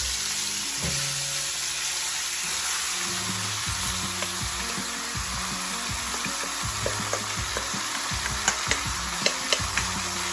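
Oxtail pieces frying in hot oil in a pan, with steady sizzling. A wooden spoon scrapes the last pieces out of a metal bowl, with a few sharp clicks near the end.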